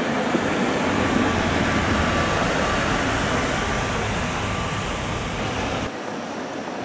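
Tatra T1 tram passing close by: wheels rolling on the rails with a steady low motor hum. Near the end the sound drops suddenly to quieter street noise.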